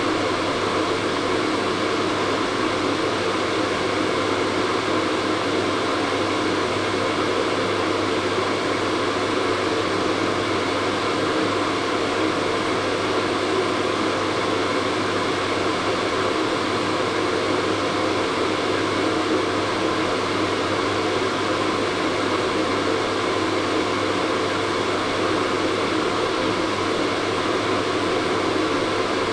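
Hair dryer running steadily: an even rush of blown air over a low motor hum, with no change throughout.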